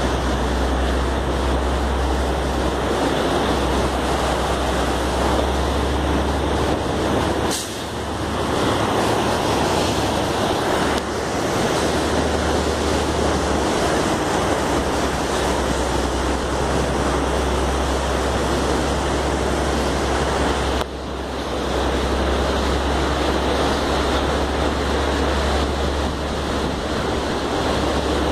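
Steady rushing of a whitewater mountain river running beside the road, mixed with a low rumble of wind on the microphone. The noise briefly dips twice.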